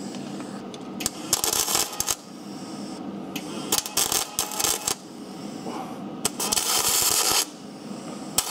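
Electric welding arc crackling in three short bursts of about a second each, building up metal on the worn pad seat of a rear brake caliper so the pad cannot rattle in the groove.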